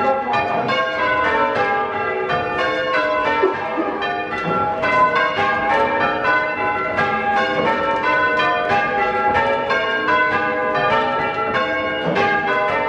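Ring of six church bells, tenor of 8-3-22 cwt tuned to G, being rung full circle in changes: a steady, unbroken run of bell strokes, each ringing on into the next, heard from the ringing room below.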